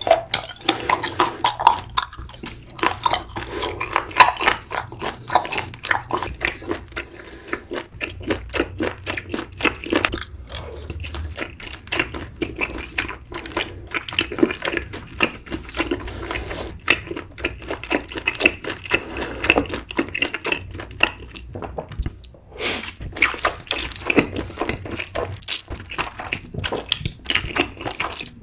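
Close-miked eating sounds: wet, sticky chewing with a steady stream of small mouth clicks and smacks, irregular throughout.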